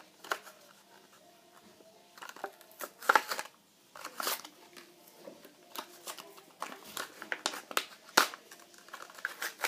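A Hot Wheels blister package being worked open by hand: the plastic bubble and card crinkling and cracking in irregular snaps and clicks, with pauses in between.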